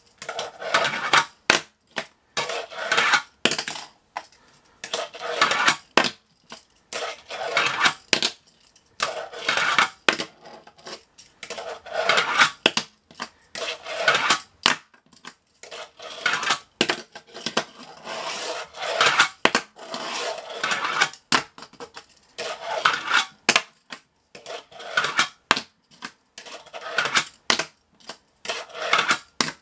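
Tech Deck fingerboard clattering and rolling on a hard tabletop, its plastic deck and wheels clacking down again and again, roughly once or twice a second, as tricks are tried.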